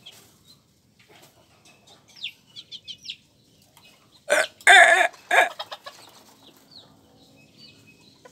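Bantam chickens clucking softly, with one loud call of about a second, broken into three parts, just past the middle.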